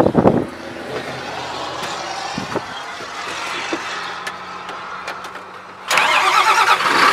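A John Deere tractor's diesel engine being started from inside the cab. Near the end the starter cranks loudly for about two seconds, then the engine catches and settles into a low, steady idle. Before that there is a quieter steady hum with a few small clicks, after the wind noise cuts off about half a second in as the cab is closed up.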